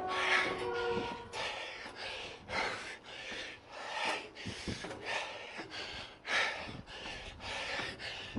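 A man breathing hard and panting, quick heavy breaths about two a second, out of breath from running up 1078 steep stair steps. A few brief steady tones sound faintly in the first second.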